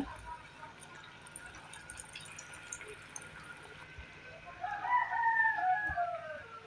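Faint sizzling of potato slices deep-frying in oil in a kadai, with a few light spatula clicks. About four and a half seconds in, a rooster crows once, a drawn-out call that falls away at the end and is louder than the frying.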